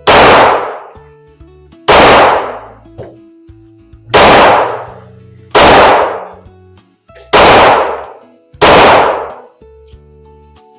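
Six shots from a 9 mm Glock 45 pistol fired at an uneven pace, roughly one every one to two seconds, each with a short echoing decay; the pistol cycles each round after a guide rod change. Background music plays underneath.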